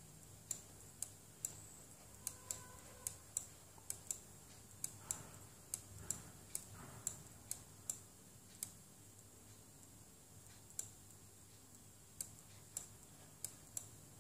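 Faint, sharp single clicks of a computer's controls, about two a second at an uneven pace, with a lull of a couple of seconds after the middle.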